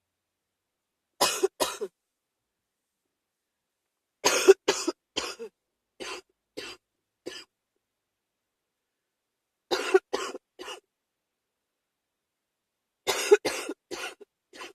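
A person with a cold coughing in four fits: two coughs about a second in, a run of about six coughs that fade around four to seven seconds in, three more near ten seconds, and another quick run of about five near the end.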